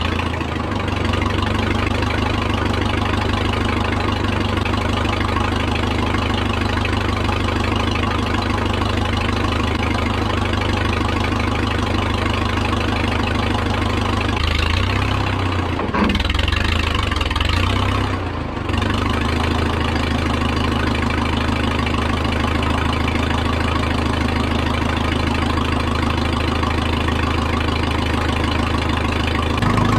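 Case 580 Construction King backhoe's engine idling steadily just after starting, its speed wavering and dipping briefly around the middle before settling back to a steady idle.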